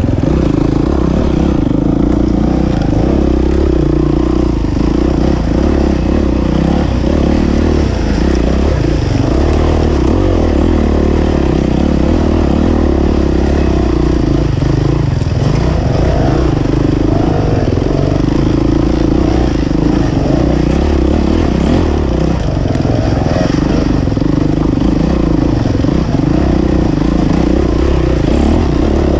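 Enduro dirt bike engine running steadily as the bike is ridden, its note easing and picking up again a few times.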